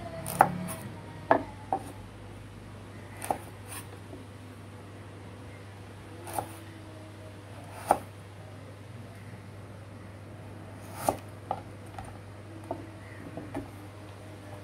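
Chef's knife slicing carrots on a wooden cutting board: about a dozen sharp knocks of the blade hitting the board at uneven intervals, some coming in quick pairs.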